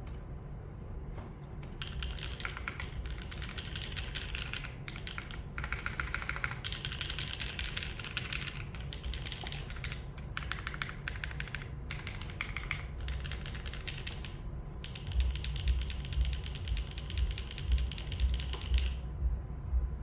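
Typing on a Shelby 80 tenkeyless mechanical keyboard with an aluminium plate, plate foam, Yokeebs x Noir Horizon switches and GMK Light Honor keycaps. Rapid runs of keystrokes are broken by short pauses, and deeper thuds join the typing in the last few seconds.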